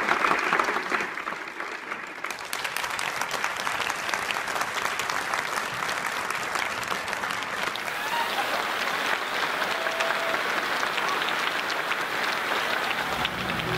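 A full theatre audience applauding, a dense steady clapping that holds at one level throughout.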